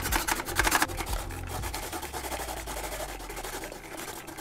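Carrots being shredded in a hand-cranked rotary drum grater (Pampered Chef Quick Prep Food Grater), the turning blade grating them with rapid scratchy strokes. The sound is loudest in the first second and eases off a little after.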